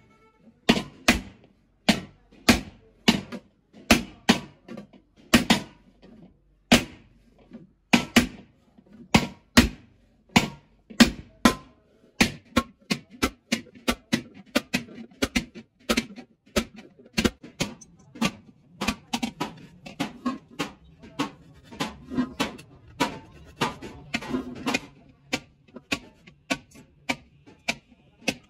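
Hand hammer striking the inside of a large aluminium cooking pan held over a steel stake, each blow a sharp ringing metallic clang. The strikes are irregular, about one or two a second, then from about twelve seconds in they turn into a quicker, lighter run of about three a second as the pan's surface is planished.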